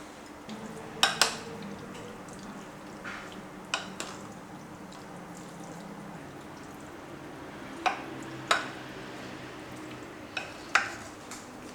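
Kitchen utensils clinking against dishes and pans during cooking prep: sharp taps, mostly in pairs, about every three seconds, over a steady low hum.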